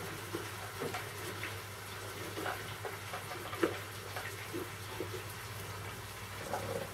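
Kitchen knife slicing a tomato on a wooden cutting board: about ten soft, irregular taps of the blade on the board, the sharpest a little past halfway. Behind it, a steady faint hiss from the pan of duck sizzling.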